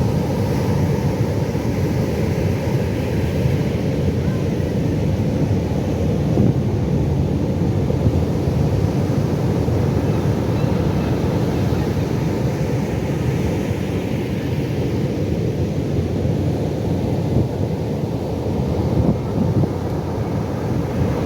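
Pacific Ocean surf: a steady, deep rumble of waves, with the hiss of the wash swelling twice.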